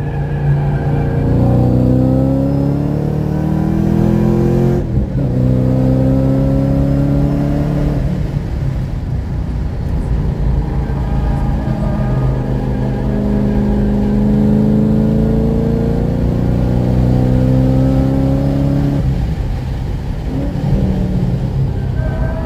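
Forced-induction car engine heard from inside the cabin, accelerating hard around a race track. Its pitch climbs, breaks and drops at a gear change about five seconds in, then rises again through a long pull. Near the end the pitch falls as the throttle comes off for a corner.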